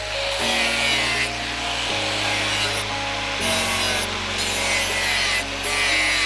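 Slow, repeated back-and-forth rasping strokes of a hand tool working the knife, about one stroke every second and a half, over background music with steady low chords.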